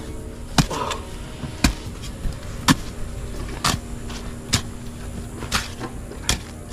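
A hoe chopping into packed earth, about once a second, each stroke a sharp thud with clods of soil breaking loose.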